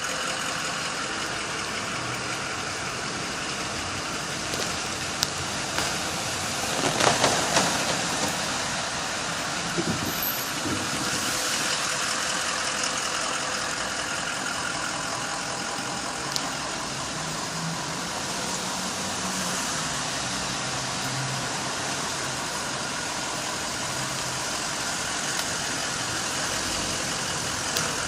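Steady rushing of water spilling over a concrete retaining wall onto a four-lane street, mixed with car traffic passing by. One vehicle passes louder about seven seconds in.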